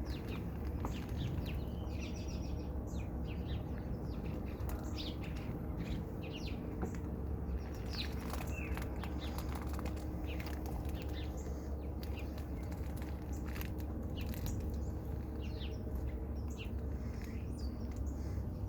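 Birds chirping in scattered short calls over a steady low hum.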